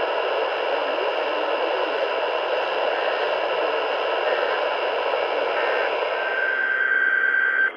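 Steady radio static hiss from a weak broadcast signal, with a faint steady high tone coming in over the last few seconds. The static cuts off suddenly near the end.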